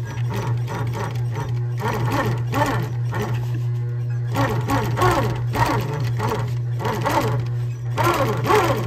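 Sewing machine stitching through a leather jacket's seam as the material is fed along the original stitch line, with background music.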